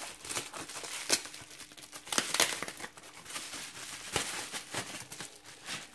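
Plastic bubble wrap crinkling and crackling as it is pulled off a knife by hand, in irregular crackles with a few louder ones spread through.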